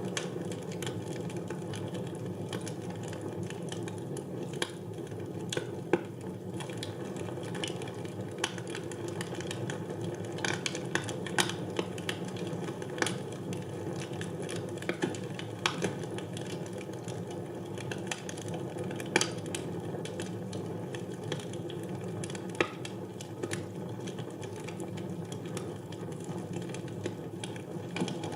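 Wood fire burning in a fireplace: a steady low rush of flames with irregular crackles and pops, a few louder snaps scattered through.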